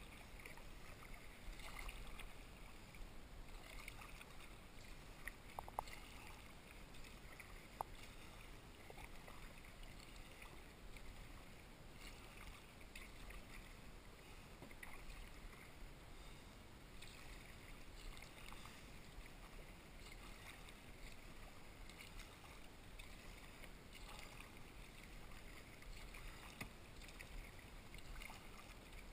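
Faint, regular splashing of kayak paddle blades dipping into calm water, with water rippling along the hull and a couple of small ticks early on.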